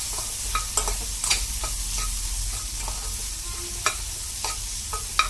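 Onions and tomatoes frying in oil in a kadai, a steady sizzle, while a spoon stirs and clicks against the pan about nine times.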